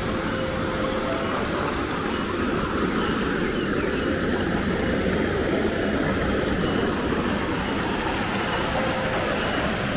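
River water rushing, a steady even noise.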